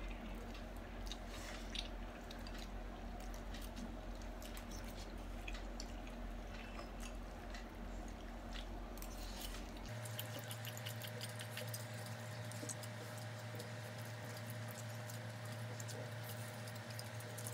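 Faint eating sounds: spicy noodles slurped and chewed, with scattered small clicks of forks against glass bowls.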